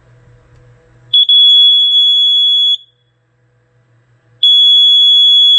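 First Alert FCD3 carbon monoxide alarm's piezo horn sounding during a test-button self-test. It gives a loud, steady, high-pitched beep about a second and a half long, a pause of under two seconds, then a second long beep of the same pitch near the end. This is its own pattern of long beeps rather than the usual four-beep CO pattern.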